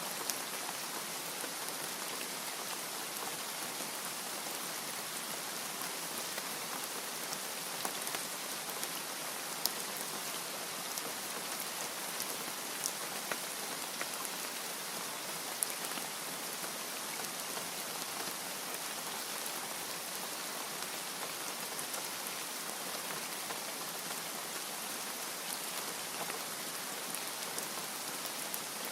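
Steady rainfall, an even hiss with the patter of individual drops.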